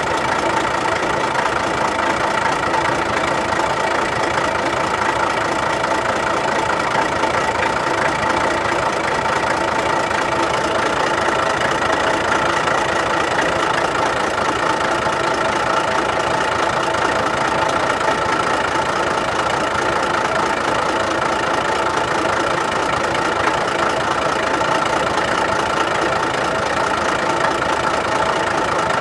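Diesel truck engine idling steadily, with an even, unchanging running note.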